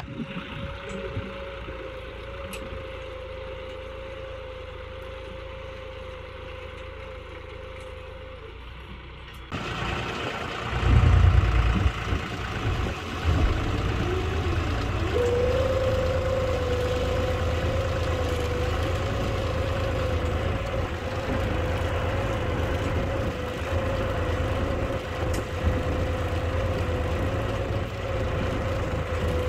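John Deere 5405 tractor's three-cylinder diesel engine running steadily under load while pulling a single-tine subsoiler through the soil. About ten seconds in it becomes much louder and closer, with a deep rumble and a steady drone whose pitch wavers briefly before settling.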